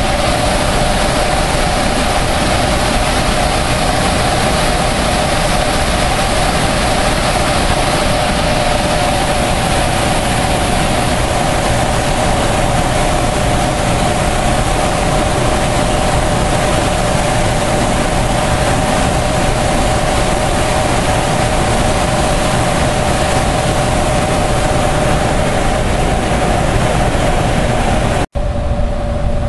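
Water churning and rushing out below a hydroelectric dam as a loud, steady roar, with a steady machine hum running through it. The sound drops out for an instant near the end.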